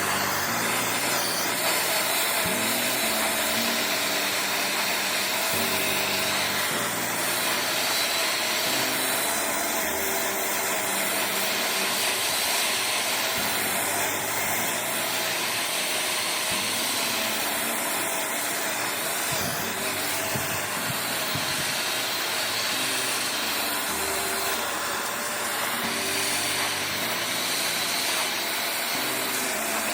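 A small power tool's motor running steadily with a continuous, slightly wavering whine, over background music.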